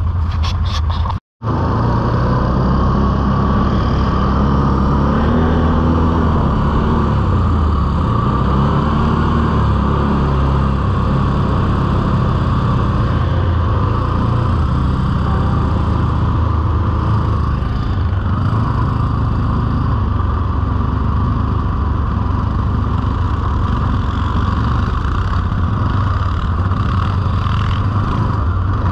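Can-Am Outlander ATV engine running under way, its pitch shifting as it speeds up and settles, over tyre and wind noise. The sound drops out for a moment about a second in.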